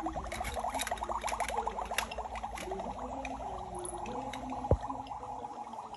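Toy kitchen stove's electronic boiling sound effect: a rapid bubbling that thins out a bit past halfway, with light clicks of plastic toy pots and play food and a single bump about three-quarters through.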